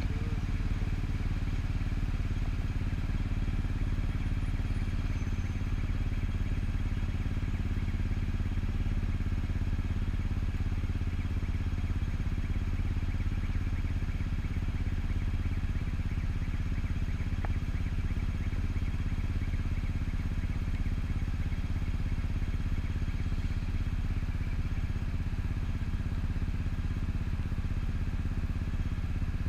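Yamaha Cygnus scooter's single-cylinder engine idling steadily while stopped at a light, with no revving.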